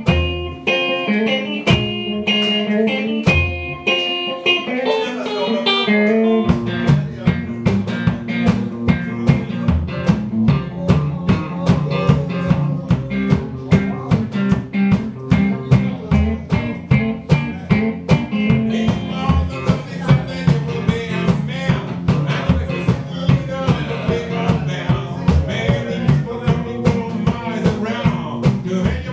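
Live blues: electric guitar playing over a plucked washtub bass and a steady beat. The guitar starts out more sparsely, and the full rhythm comes in about six seconds in.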